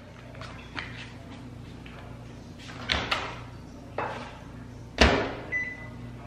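Built-in microwave oven being loaded: a few light clicks and knocks, the door clicking open about three seconds in, then the door shut with a loud bang about five seconds in, followed by one short keypad beep near the end.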